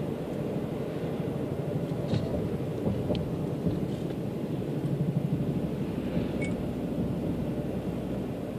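Distant Boeing CH-47 Chinook helicopters, their tandem rotors giving a low, rapidly pulsing rumble that swells near the middle.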